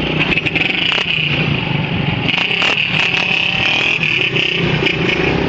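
Small motorcycle engine running steadily at road speed, with a constant rush of wind and road noise.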